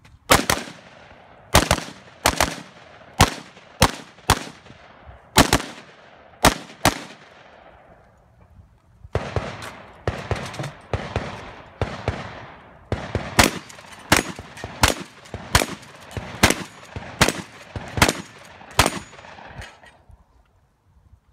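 Competition gunfire: about a dozen semi-automatic rifle shots from a Ruger SR556, fired one after another over about seven seconds, each trailing off in a short echo. After a pause of about two seconds a second, faster string of roughly fifteen shots follows, which stops about a second and a half before the end.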